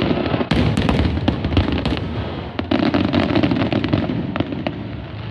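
Fireworks going off in quick succession: many sharp cracks and bangs over a low rumble, in two dense clusters, the second starting about two and a half seconds in.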